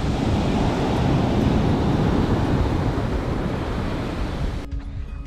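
Surf breaking on a sandy beach with wind on the microphone: a steady rushing noise. Near the end it cuts off suddenly and acoustic guitar music begins.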